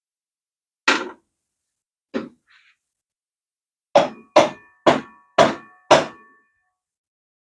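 Hammer blows on a motorcycle's front axle, driving out an axle that is stuck tight: two single strikes, then five quick ones about half a second apart, the last few with a short metallic ring.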